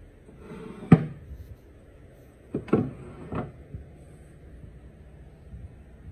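Solid-wood drawers pushed shut by hand, each sliding briefly and ending in a sharp wooden knock as it seats in the cabinet. There is one knock about a second in, then three close together between two and a half and three and a half seconds in.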